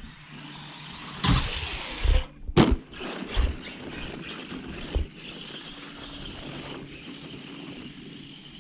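Electric motor of an Arrma Senton RC truck whining steadily as it drives across snow, with several loud thumps in the first few seconds.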